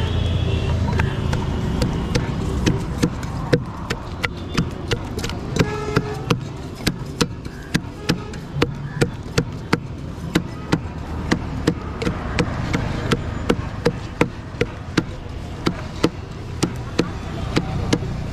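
Wooden pestle pounding a paste in a steel tin: a steady run of sharp knocks, about two a second, as the wood strikes the bottom of the tin.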